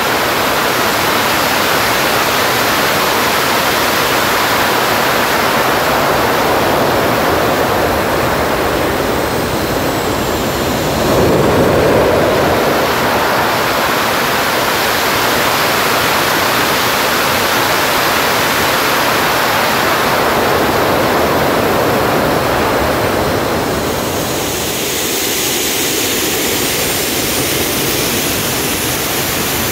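Homemade turbocharger-based jet engine running under test, a loud steady rushing noise. It surges louder about eleven seconds in and eases a little later, with faint high turbine whistles gliding in pitch.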